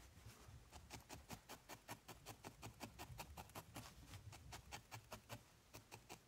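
Felting needle stabbing repeatedly into a ball of white wool over a felting pad: faint, quick, evenly spaced pokes, about five a second, felting an added layer of wool onto the body.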